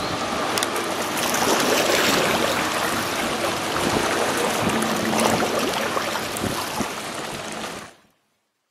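Water rushing and splashing in the bow wave of a passing inland motor tanker, a steady broad wash; the sound cuts off suddenly about eight seconds in.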